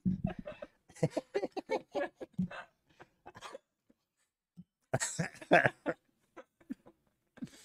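A man and a woman laughing in short breathy fits, with a pause of about a second in the middle.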